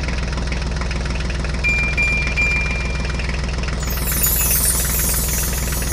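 Tractor engine idling: a steady, low diesel-like drone. A thin high tone sounds briefly about two seconds in, and a high hiss comes in about four seconds in.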